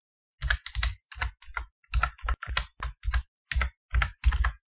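Typing on a computer keyboard: a steady run of uneven key clicks, about four or five a second, starting about half a second in.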